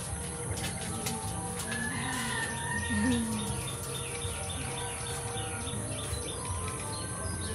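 Birds chirping, with a quick run of repeated high chirps in the middle.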